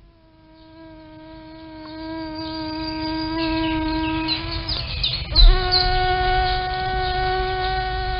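Mosquito's high, steady wing-beat whine, fading in over the first couple of seconds. About five seconds in there is a short knock, and the pitch steps slightly higher and holds.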